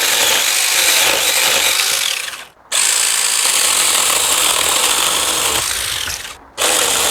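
Power saw cutting through citrus tree branches in three long runs, pausing briefly twice.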